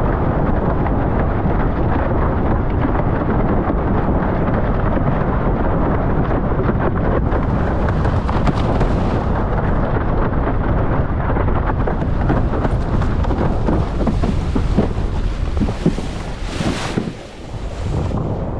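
Wind buffeting a GoPro's microphone while a slalom windsurf board planes fast over choppy water, a loud steady rush. It eases briefly near the end.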